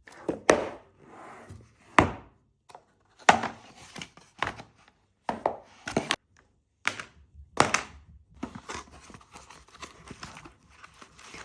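Unboxing handling noise: a series of sharp knocks and taps, as of a phone box being set down and handled, mixed with scraping, turning into steadier scraping and rustling of the packaging in the last few seconds.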